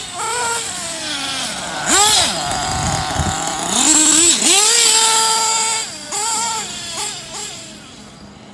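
Kyosho Inferno NEO ST 3.0 nitro RC truck's small two-stroke glow engine buzzing and revving up and down as it is driven. It is loudest and sweeps sharply in pitch as it passes close, then fades as it drives away near the end.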